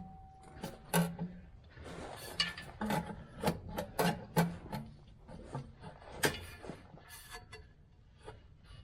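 Irregular metal clinks, knocks and scraping as a replacement starter motor is worked up into position against the engine.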